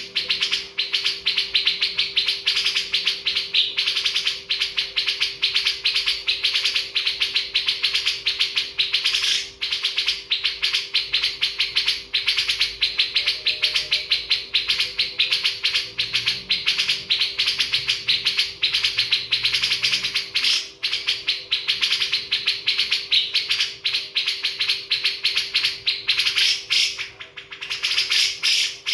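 Many birds chirping rapidly and without pause in a dense chatter, over a faint steady hum.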